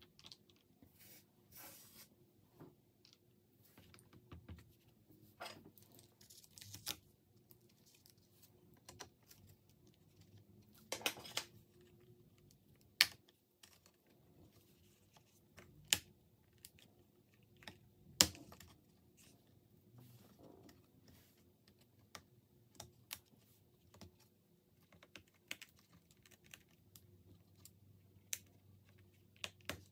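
Small clicks, taps and scrapes of hands and a small tool working on the internals of an opened Lenovo Legion Y700 laptop around its cooling fans. There is a brief scraping rustle about a third of the way in and a few sharp clicks in the middle.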